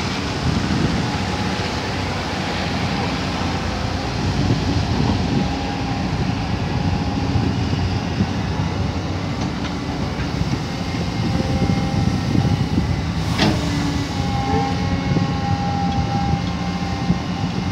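Caterpillar 320D hydraulic excavator running steadily under load as it digs and swings, its diesel engine note with a thin whine that comes and goes. A single sharp clank about 13 seconds in.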